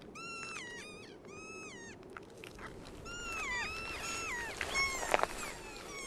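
Young keas calling: a quick run of short, pitched squawks that rise and fall in the first two seconds, then a string of downward-gliding calls from about three seconds in. A single sharp tap sounds about five seconds in.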